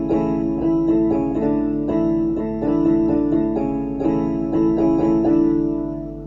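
Electronic keyboard set to its harpsichord voice, playing a run of chords with quick repeated plucked notes, fading out near the end.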